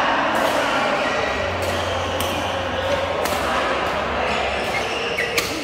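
Badminton rackets striking the shuttlecock in a rally, sharp hits at uneven spacing about once a second, the sharpest near the end, over the general chatter of players in the hall.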